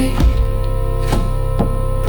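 Dark ambient music: a steady layered drone over a low bass hum, with a deep drum hit near the start and a few sharp percussive strikes.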